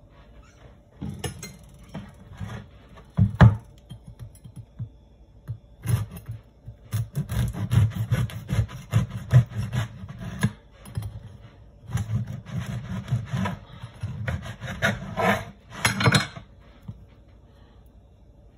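Serrated bread knife sawing through the hard crust of a sesame sourdough loaf on a wooden cutting board: rapid rasping back-and-forth strokes in three runs with short pauses, the loudest crack of the crust about three and a half seconds in.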